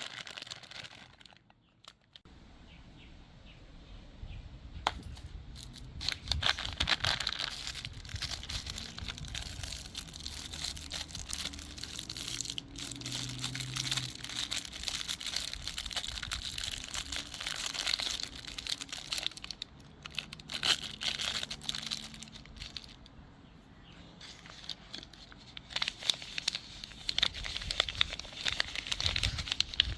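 Plastic candy wrappers crinkling and tearing as they are handled and opened, with many sharp crackles that come and go in loudness.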